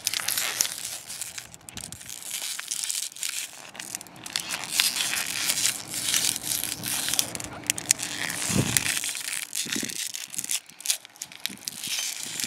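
Empty plastic water bottle crinkling and crackling as it is wrung by hand around its middle, squeezing the air inside under pressure before the cap is popped.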